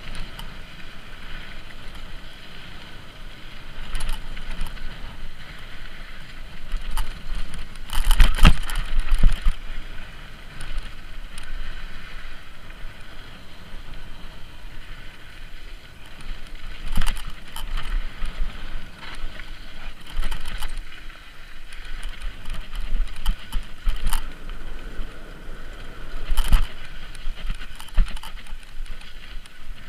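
Mountain bike descending a dry dirt trail, heard from a helmet camera: a steady rush of wind and tyres rolling on dirt, broken by sharp knocks and rattles as the bike hits bumps, loudest about eight seconds in.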